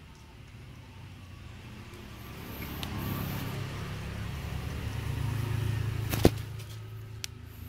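Low rumble of a passing motor vehicle, building up over a few seconds and then fading. A sharp click about six seconds in is the loudest moment, with a couple of fainter ticks around it.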